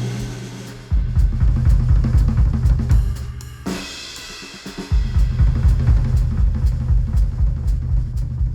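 Instrumental music with a drum kit and heavy bass, played through Sennheiser headphones and picked up by microphones at the earcup. The beat stops for the first second, comes back, then stops again briefly past the middle under a bright swell before it resumes.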